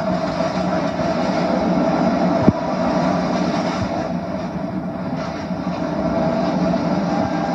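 Film soundtrack played from a screen: the steady rumbling drone and hum of the alien spaceship hovering overhead. A single short click about two and a half seconds in.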